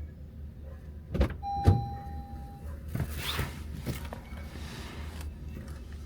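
Car sounds under a low steady rumble: two sharp thumps about a second in, then a single steady electronic chime tone lasting about a second, then rustling and handling noise.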